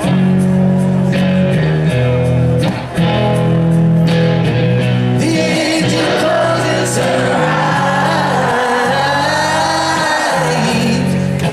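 Rock band playing live through a concert PA: electric guitars, bass and drums, with a male lead vocal coming in about halfway through.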